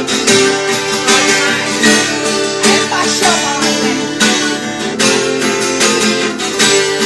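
Acoustic guitar strummed in a steady rhythm, playing an instrumental passage between sung verses of a sertanejo song.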